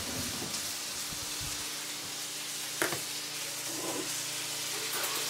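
Venison steaks frying in butter in a pan, a steady sizzle, with one sharp click a little under three seconds in.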